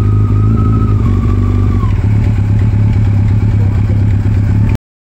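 Yamaha FJR1300's 1,298 cc inline-four engine running steadily through an aftermarket exhaust, with a deep, even exhaust note. A higher whine eases down in pitch about two seconds in. The sound cuts off abruptly near the end.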